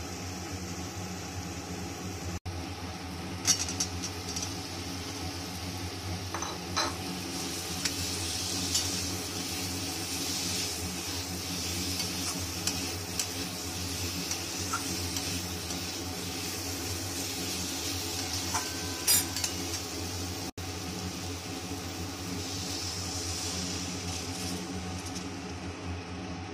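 Masala and chicken koftas sizzling in a steel kadai while a metal spatula stirs and scrapes, with sharp clinks of the spatula against the pan, loudest a few seconds in and again about two-thirds of the way through. A steady low hum runs underneath.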